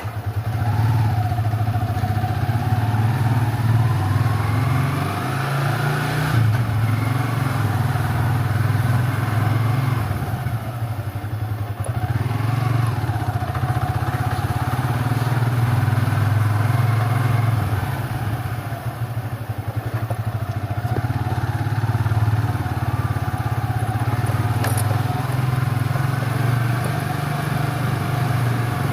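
Motorcycle engine running steadily, with a low, even hum.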